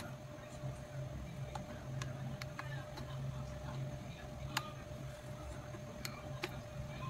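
Ceramic flat iron being worked through long hair: a handful of sparse light clicks, one to two seconds apart, over a steady low hum.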